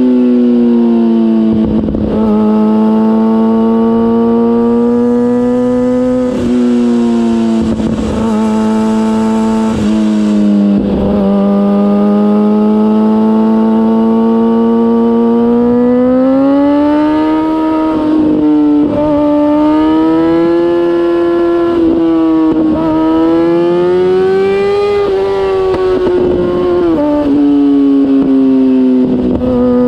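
2004 Kawasaki ZX-6R inline-four engine heard close up through a MIVV GP aftermarket exhaust while the bike is ridden. The loud engine note rises and falls slowly with the throttle and breaks off briefly several times.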